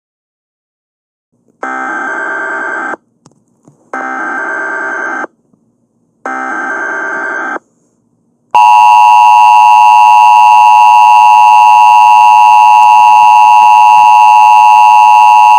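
Emergency Alert System broadcast opening: three short bursts of digital data tones (the SAME header) about a second apart, then the steady two-tone EAS attention signal, held loud for about seven seconds. It announces that an emergency alert message follows.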